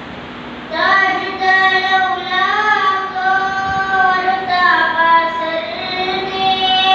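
A young boy singing a naat, an Islamic devotional poem, solo into a microphone. After a brief pause at the start, he sings one long phrase of held notes that glide up and down in pitch.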